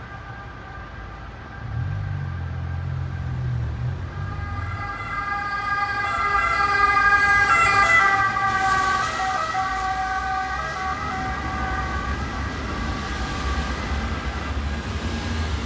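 Ambulance siren passing along a city street: it grows louder to a peak about eight seconds in, dips slightly in pitch as it goes by, then fades. Low rumble of engines and traffic sits underneath it.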